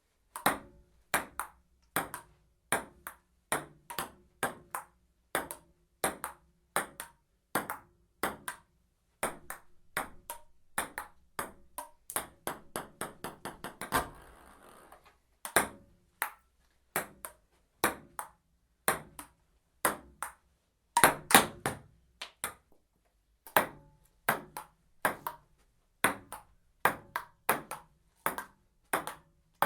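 Table tennis rally: a celluloid ping-pong ball clicking sharply off paddles and table, about two hits a second, with a quicker flurry of hits near the middle and the loudest hits a little past two-thirds of the way through.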